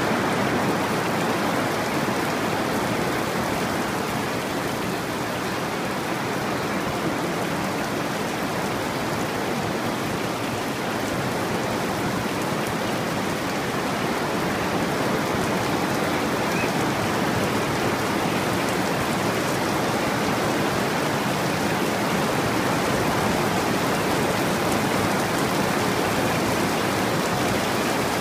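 Heavy rain falling steadily, an even hiss that holds at the same strength throughout.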